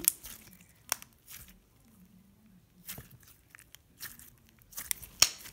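Thick grey slime being squished and stretched between the fingers, giving scattered short pops and clicks with quiet stretches between.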